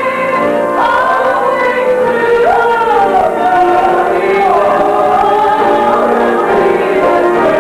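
A song: a sung melody line holding and sliding between long notes over sustained accompaniment.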